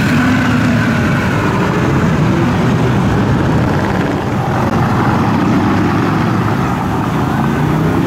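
V8 engine and exhaust of a first-generation Chevrolet Camaro running steadily as the car pulls away and drives off, a loud low drone that rises and falls a little in pitch.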